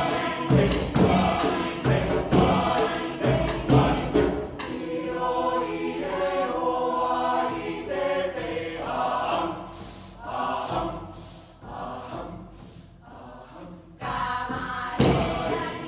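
A mixed vocal ensemble singing in harmony: a strong rhythmic beat at first, then held chords. The singing drops to a quieter stretch with a few soft hissing sounds, and the full ensemble comes back in near the end.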